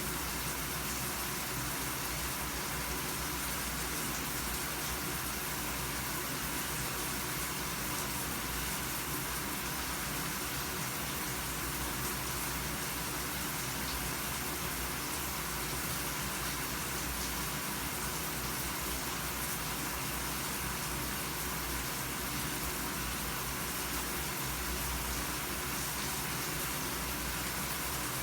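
Running shower: a steady spray of water falling, a constant even hiss.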